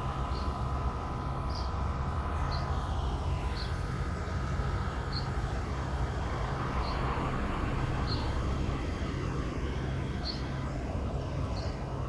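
A bird giving short, high single chirps about once a second, over a steady low rumble.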